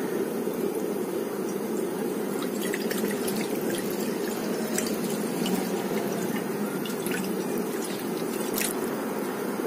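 Chicken broth poured into a nonstick wok, splashing and trickling from about two and a half seconds in, over a steady low hum.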